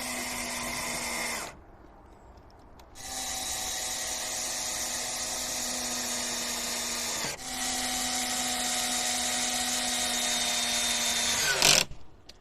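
Electric drill running at a steady pitch in long runs: one brief stop about a second and a half in, a short dip about seven seconds in, and a sudden loud knock as it stops near the end.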